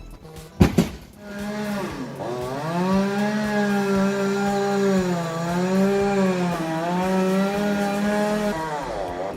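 Chainsaw engine running at high revs, its pitch dipping and climbing again. It comes after a sharp knock about half a second in, and it drops away near the end.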